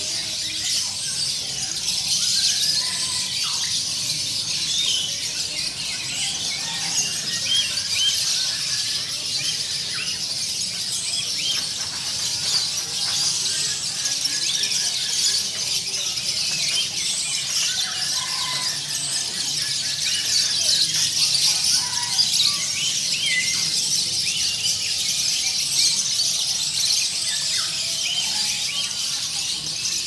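Many caged songbirds of mixed species singing at once: a dense, continuous high-pitched chorus of overlapping chirps, trills and short whistled glides.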